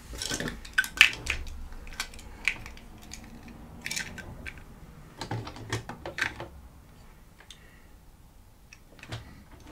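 Plastic toy playset pieces and figures being handled, giving a scatter of small clicks, taps and knocks that grow sparser near the end.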